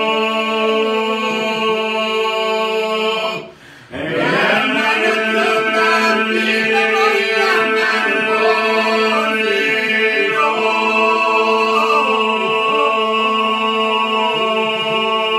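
Men and a woman singing unaccompanied in Albanian polyphonic folk style: a steady held drone with voices moving above it. The singing breaks off briefly for a breath about four seconds in, then carries on.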